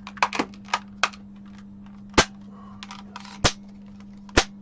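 Plastic case of a Samsung BN59-01015A TV remote control being snapped back together: a run of sharp plastic clicks, several small ones at first, then three loud snaps about a second apart as the clips take a lot of force to seat.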